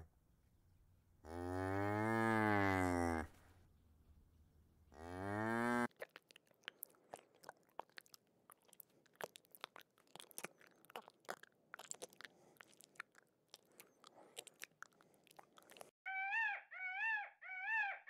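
Cattle mooing: one long moo about a second in and a second one that cuts off at about six seconds. Then comes a stretch of faint, irregular clicks and crackles. Near the end a peafowl gives a quick run of about four wavering calls.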